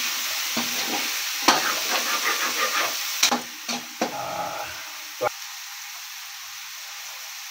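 Pork, tomato and shrimp paste sautéing in a wok: steady sizzling, with a metal spatula scraping and clinking against the pan as the mix is stirred. The stirring stops a little past halfway with a last clink, leaving quieter sizzling.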